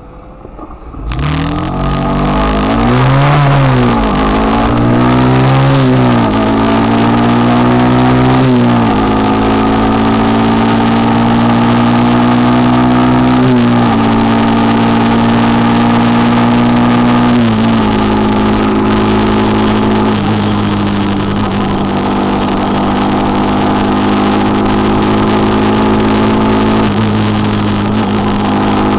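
Motorcycle engine running close by and loud. About a second in it revs up and down several times, then pulls steadily through the gears, its note slowly climbing and dropping at each upshift.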